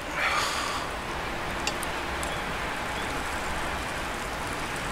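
Hot tea pouring from a kettle into a stainless steel cup, a steady splashing stream of liquid, with a few light crackles from the wood fire beneath.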